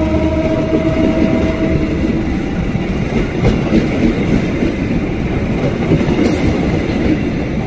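KAI passenger train coaches rolling past close by: a loud, steady rush and rumble of wheels on rail. A faint steady tone sounds in the first two seconds.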